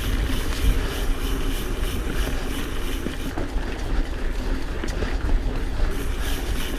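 Pivot Switchblade mountain bike rolling on a dirt trail: steady tyre noise and wind rumble on the mic, with the hub ticking. The hub sounds pretty funky, which the rider puts down to hard use on a demo bike.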